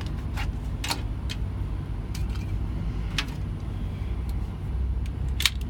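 Steady low rumble of a running vehicle, with a few short sharp clicks and ticks at irregular times, the loudest near the end.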